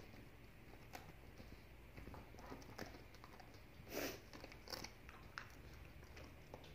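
A dog chewing and biting at a piece of butter brioche bread held in its paws: faint mouth and chewing sounds with scattered small clicks, and one louder burst about four seconds in.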